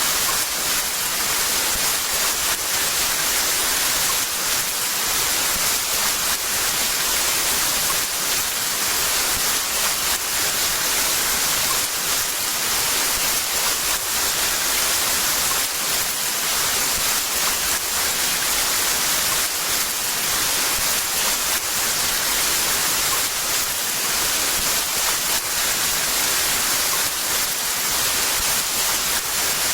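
Heavy rain falling steadily, a constant dense hiss with no breaks or distinct drops.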